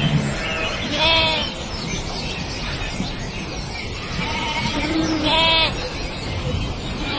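An animal's loud, wavering, bleat-like calls, two strong ones about four seconds apart with fainter calls between, over steady background noise.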